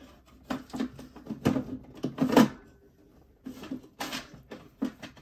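Irregular light clicks and clacks of small hand tools and knife parts being handled on a work surface, about a dozen in all, the loudest a little past two seconds in.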